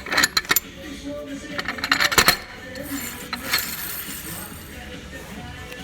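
Metal parts of an automatic transmission clinking and clattering as they are handled, in short clusters of sharp clinks at the start, about two seconds in, and once more around three and a half seconds.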